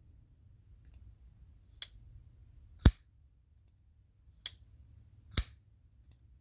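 A folding pocket knife flicked open and shut, its blade snapping into place with sharp metallic clicks: four in all, a lighter click each time followed about a second later by a loud snap.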